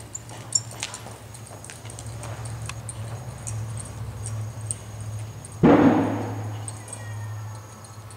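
A saddled horse walking on arena dirt: soft hoof falls and light clicks over a steady low hum. A sudden loud, breathy burst comes a little past halfway and fades over about a second.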